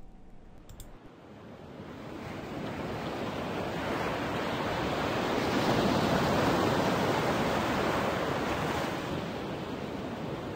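Ocean waves washing: a steady rush of surf that builds over the first few seconds, is loudest about halfway through, then eases off a little.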